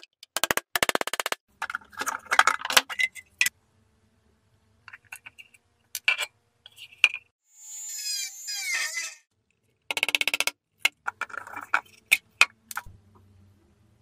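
A quick series of sharp metallic taps and clinks on a rusted steel lighter case, including a pin punch struck at the hinge. These are broken by short bursts of a rotary sanding tool, with a whirring sound that falls in pitch about eight seconds in.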